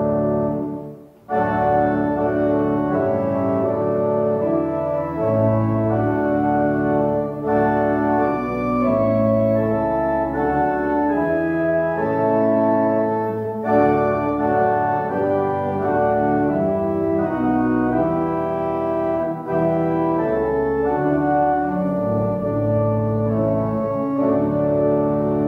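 Organ playing a hymn tune in held chords, with a short break about a second in.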